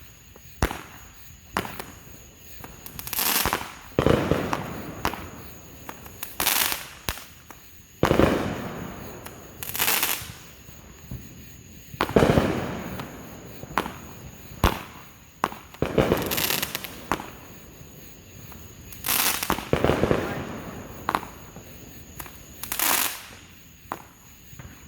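Consumer fireworks going off: about a dozen separate bursts a second or two apart, some short sharp cracks, others fuller and deeper booms, the loudest about halfway through.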